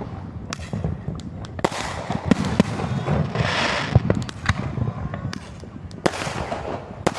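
Fireworks going off close by: a rapid, irregular string of sharp cracks and bangs, with a hissing crackle about three and a half seconds in.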